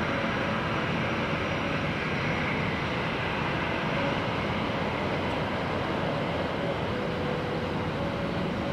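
Boeing 737-500's CFM56-3 turbofan engines running at low taxi thrust as the jet turns and lines up on the runway: a steady rushing hum with faint whining tones.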